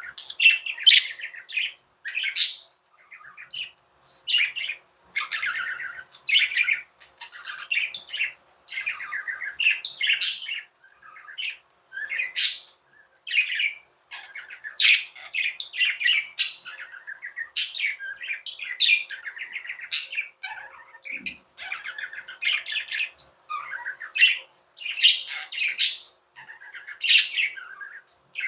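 Pet budgerigars chirping and warbling constantly, a rapid run of short chirps and squeaky calls.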